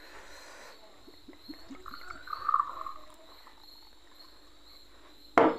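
Vodka poured from a glass bottle into a small glass tumbler, the splash in the glass loudest about two to three seconds in, followed near the end by one sharp knock of glass set down on the tiled table. Crickets chirp steadily in the background.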